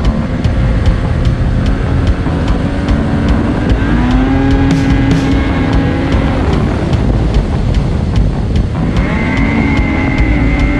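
Ski-Doo Renegade snowmobile's 850 two-stroke twin engine running under throttle, with steady track and wind noise. The engine pitch climbs about four seconds in, drops away, and climbs again near the end.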